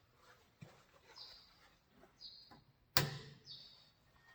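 A single sharp click about three seconds in, with a fainter click earlier, over short, high, falling bird chirps repeating in the background.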